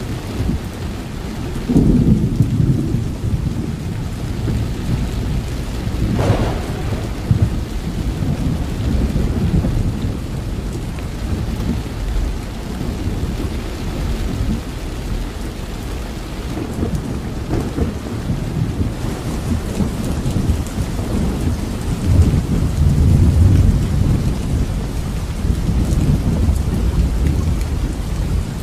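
Heavy rain falling steadily, with deep rolling thunder that swells about two seconds in and again for a few seconds near the end.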